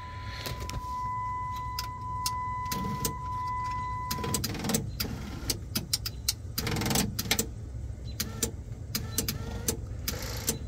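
Jeep Grand Cherokee ZJ sunroof motor running in the roof as the switch is held, with a steady low hum and many small clicks and knocks. The glass does not move, because the drive-cable sheaths have come loose from their brackets. A steady high tone sounds for about the first four seconds.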